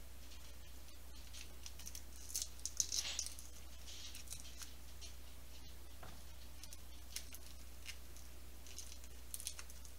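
Papery crackling and rustling of garlic skins being peeled by hand off crushed cloves, in short spells. The loudest cluster comes about two to three seconds in.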